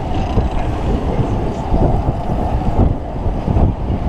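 Wind buffeting the microphone of a camera riding in a seat of a giant tower chain-swing ride as it circles: a loud, gusty low rumble.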